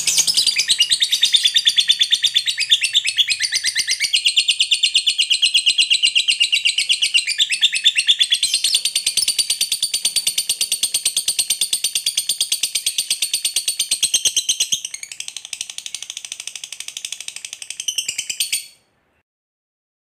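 Lovebird giving its long unbroken 'ngekek' chattering song: a rapid, high-pitched run of notes lasting about eighteen seconds. It gets somewhat quieter near the end and then stops abruptly.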